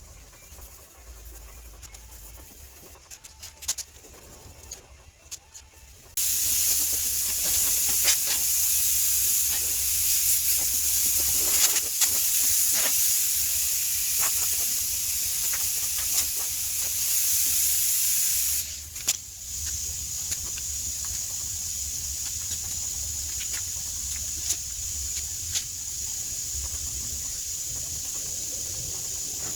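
A steady hiss starts suddenly about six seconds in and runs loud, then drops to a quieter steady hiss about two-thirds of the way through.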